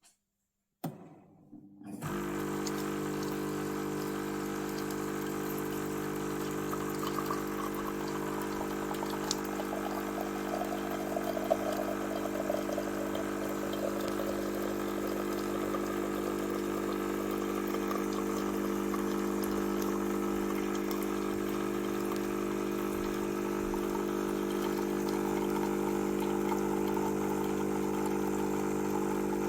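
Beko CaffeExperto CEG7302B bean-to-cup coffee machine running: a click about a second in, then a steady mechanical hum that starts about two seconds in and holds.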